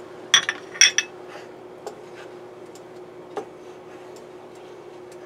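Wooden spatula stirring a thick, creamy sauce in a metal frying pan, knocking against the pan. A quick cluster of ringing clinks comes about half a second to a second in, followed by a few lighter taps.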